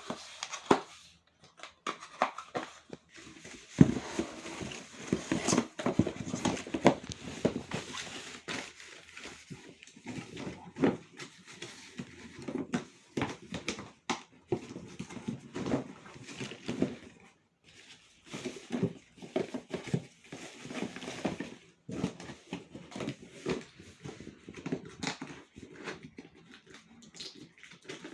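Cardboard and plastic packaging being handled while a soundbar is unboxed: irregular rustling, crinkling and light knocks, with a few short pauses.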